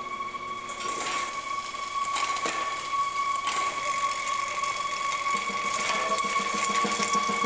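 Road bike drivetrain turned by hand on a stand: the chain runs over the chainring and through the SRAM eTap AXS rear derailleur's oversized pulley cage, with a few sharp ratchet-like clicks. A steady high drone sits underneath, and a pulsing beat comes in about five seconds in.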